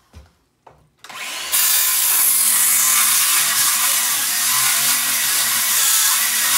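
Power saw cutting into a wooden wall stud. It starts about a second in, comes up to full speed about half a second later and then runs steadily.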